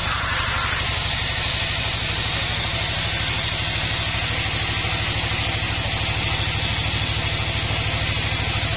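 Band sawmill running steadily, its blade ripping lengthwise through a long mahogany log: a low, rapidly pulsing drone under a steady hiss of cutting.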